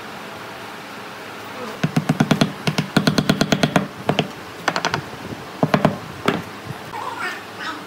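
Rapid runs of sharp knocks or taps, about nine a second, starting about two seconds in and breaking into shorter clusters, with a few brief sliding squeaks near the end.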